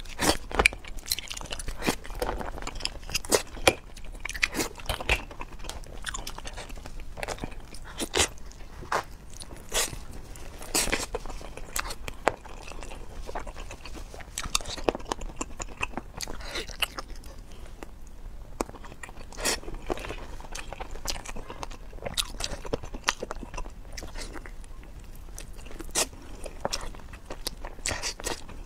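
A person chewing and biting into seafood close to the microphone, with irregular sharp crunches and clicks.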